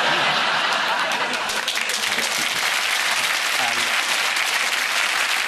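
Studio audience applauding: dense, steady clapping that starts just before and holds at an even level throughout, with a few faint voices underneath.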